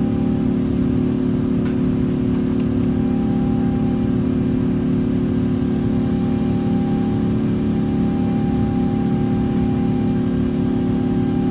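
Airbus A350's Rolls-Royce Trent XWB engines at climb thrust, heard inside the cabin: a steady, loud engine rumble with several constant humming tones over it.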